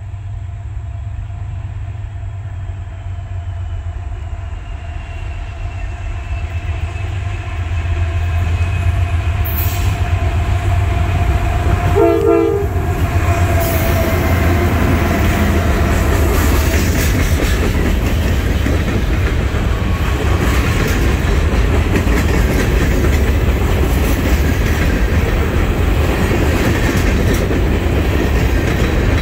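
Norfolk Southern diesel locomotives approach and pass at track speed, their engines drumming low under a steady whine that drops in pitch as they go by, with a short horn note as they pass. The empty trash train's freight cars follow, rolling by with a loud rumble and clickety-clack of wheels over rail joints.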